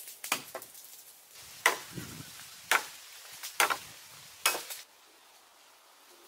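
A large bush knife chopping into a wooden pole: about half a dozen sharp chops roughly a second apart, then stopping.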